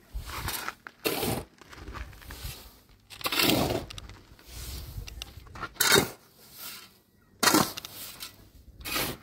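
Irregular cracking and scraping noises: about six short, sharp bursts, the loudest about six and seven and a half seconds in, with quieter rustling between.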